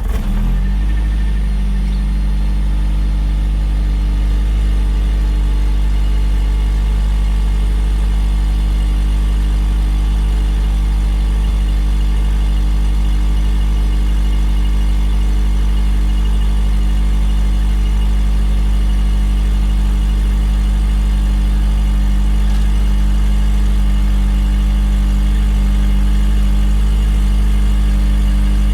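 Car engine catching on a cold start at the very beginning, then idling steadily with a strong low hum and an even pitch throughout.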